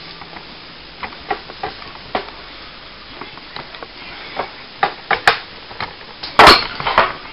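Handling noise from a handheld camera being carried around: irregular clicks, knocks and rustles, sparse at first and busier toward the end, with the loudest knocks about six and a half seconds in.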